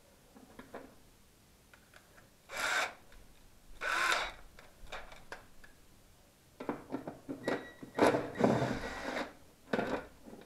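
Work noises on the Mercedes 190E's air filter housing: two short scraping rushes, then a busy run of clicks, knocks and rubbing as hands work the housing and its lid.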